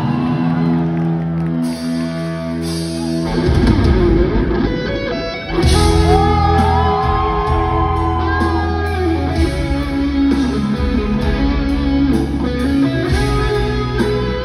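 Live band playing a song's instrumental introduction led by guitars: held chords that fill out a few seconds in, with a gliding lead melody entering about six seconds in.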